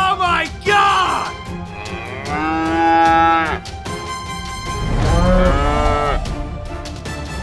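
Several mooing calls like a cow's, two short ones near the start and a long held one in the middle, over background music.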